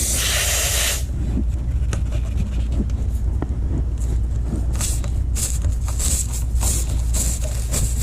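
Air hissing out of the screw puncture in the tire for about a second, then a series of short scraping rasps over a steady low rumble.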